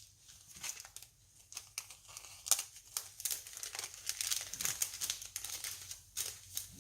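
Crinkling and rustling of kit packaging and paper pieces being handled, in quick irregular bursts.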